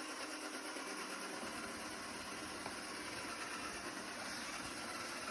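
Robot vacuum cleaner running with a steady whirring hum.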